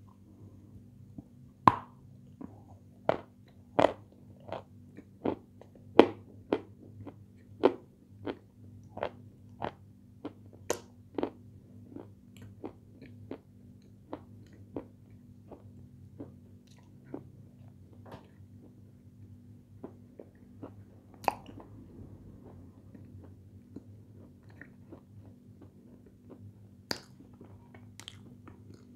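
Close-up crunching as a person bites and chews a crisp sweet: sharp crunches about one and a half a second for the first twelve seconds, then softer and sparser chewing with a few sharp crunches later on.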